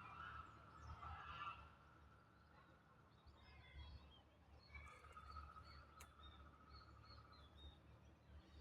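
Faint goose honking trailing off over the first second and a half. Small birds chirping and calling sparsely after that.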